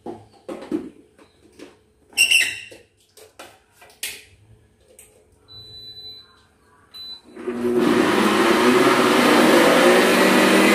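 Single-serve personal blender blending frozen watermelon chunks with lychees and a little water. It starts about seven seconds in and runs loudly, its motor pitch rising steadily. Before that come a few knocks and clicks as the blender cup is set and seated on the motor base.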